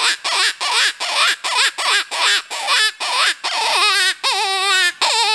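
Open-reed predator hand call (the Snack Time) blown to imitate a hare in distress. It starts with a fast run of short, bending cries, about three a second, and from about two-thirds of the way through turns to longer, drawn-out quavering wails.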